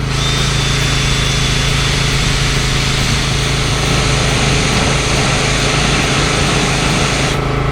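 Power sander running on an epoxy-coated oak rail, a dense buzzing noise with a thin high whine, switched off just before the end.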